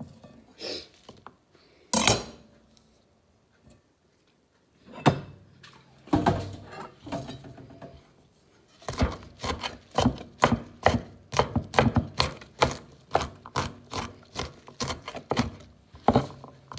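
Kitchen knife chopping fresh herbs and garlic on a cutting board: a few separate knocks at first, then from about halfway a steady run of quick chops, roughly three a second.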